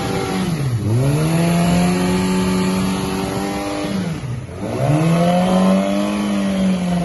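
Yamaha R6's inline-four engine being revved twice: each time the revs drop back, then climb and are held steady at high rpm. This is the demonstration of an abnormal noise the bike makes at around 6000 rpm.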